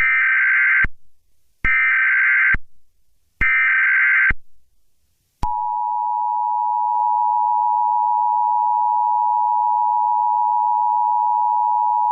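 Emergency Alert System tones: three short bursts of the SAME digital header, a buzzing data warble each about a second long with a short gap between, then about five seconds in the steady two-tone EAS attention signal begins and holds.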